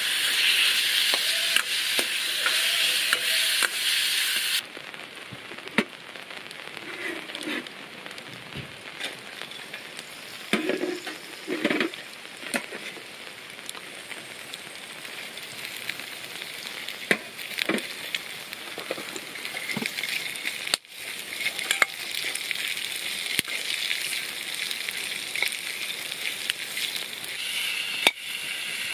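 Pork slices sizzling hard in a wok over a wood fire, the hiss cutting off suddenly about four and a half seconds in. Quieter frying follows, with a metal ladle clicking and scraping against the wok, and the sizzle rises again in the last third as cabbage and green pepper are stir-fried.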